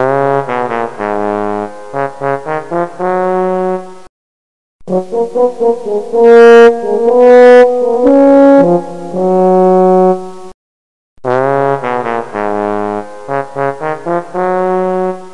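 Background music: a melody of short notes in phrases, with two brief breaks, the opening phrase returning near the end.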